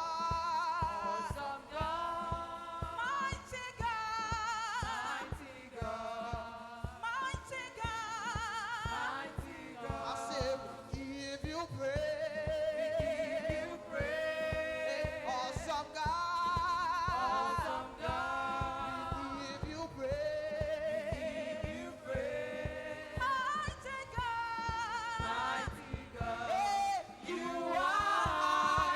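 Gospel praise chorus sung by voices together over band accompaniment with a steady beat.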